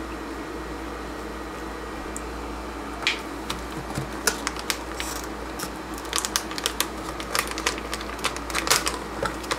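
Anti-static bag crinkling and crackling as hands work a circuit board loose in a small cardboard box. Scattered sharp crackles start about three seconds in and come thick and fast in the second half, over a steady low hum.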